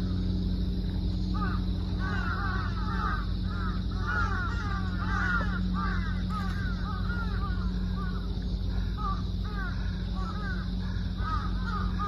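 A flock of birds calling continuously, many short falling calls overlapping one another, over a steady low hum.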